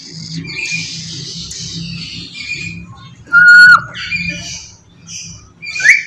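Black-capped lory calling: quieter raspy chatter at first, then about halfway through a loud, piercing whistle held at one pitch for half a second, dropping at the end. A second, rising call starts just before the end.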